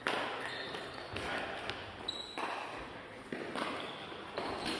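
Shuttlecock rally: a series of sharp, irregular knocks as players kick the shuttlecock back and forth, echoing in the sports hall, with a short high squeak about two seconds in.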